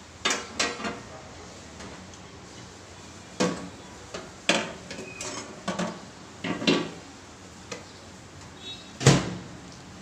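Glass turntable tray and its roller support clinking and clattering as they are set into an LG convection microwave's stainless-steel cavity: a series of short knocks and rattles. A louder knock about nine seconds in as the oven door is shut.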